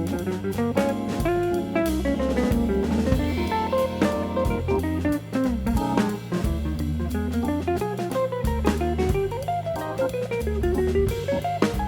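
Background music: a jazzy tune on plucked guitar over a drum kit.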